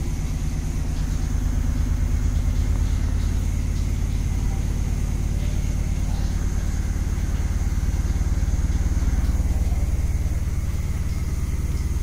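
LG T70SJSF3Z 7 kg top-load washing machine spinning at high speed: a steady low hum of the motor and drum, picked up with the phone resting on the machine's body. The reviewer calls the noise slight and the machine stable.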